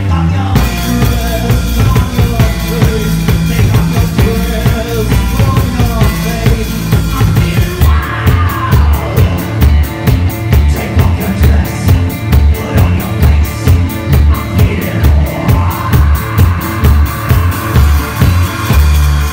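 Live band playing: a drum kit pounding a heavy beat under an amplified guitar and a singer's voice, with regular cymbal strikes joining about eight seconds in.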